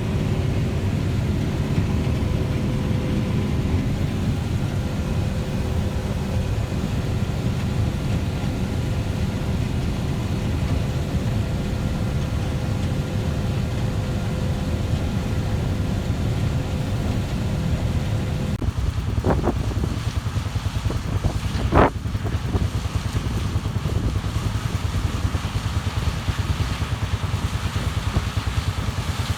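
Heavy farm machinery running steadily with a low rumble and a faint whine. The whine drops away about two-thirds of the way through, and two sharp knocks follow a few seconds apart.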